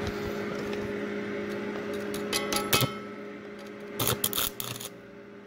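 Stick-welding arc sputtering as the electrode is struck on a steel plate: a few short crackles about two and a half seconds in, then a louder burst of arc crackle about a second long starting around four seconds in, over a steady electrical hum.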